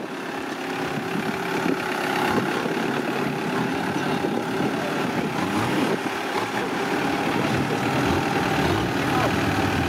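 Modified Suzuki Samurai off-roader's engine running at low, steady revs.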